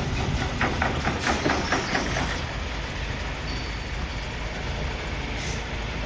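Crane engine running steadily, with a quick run of rattling metallic clicks in the first two seconds.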